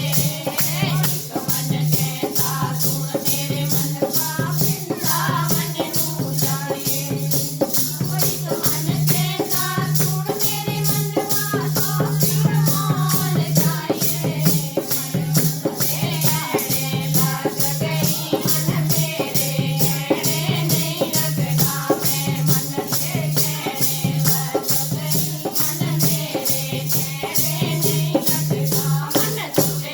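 Devotional kirtan music: a rattling hand percussion keeps a fast, even beat under a melody line and a pulsing low tone.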